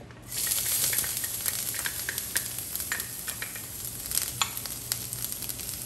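Minced ginger hitting hot oil in a stainless steel wok: a sizzle that starts suddenly a moment in and carries on steadily, with scattered light clicks and taps over it.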